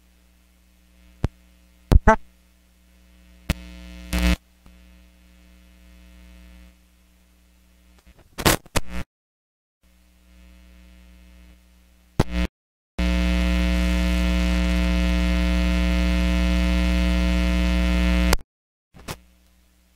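Electrical mains hum and crackle from a failing audio feed, with no lecture sound coming through. Sharp clicks and pops and brief dead dropouts come first. About two-thirds of the way in, a loud steady buzzing hum with many overtones holds for about five seconds, then cuts off suddenly.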